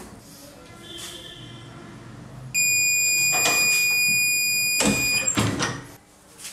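Sublimation heat press's timer buzzer sounding one steady high beep for nearly three seconds, signalling that the pressing time is up, then a couple of clunks as the press's heated top platen is released and swung open.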